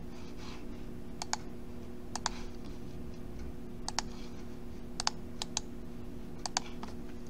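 Sharp clicks of a computer mouse, about a dozen, mostly in quick pairs, over a steady low electrical hum.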